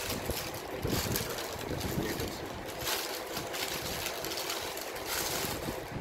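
Thin plastic bag crinkling and rustling as it is handled, with many small crackles.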